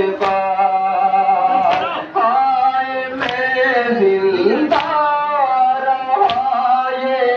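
Men chanting a Muharram lament (nauha) in long held notes, cut by unison chest-beating slaps (matam) about every one and a half seconds.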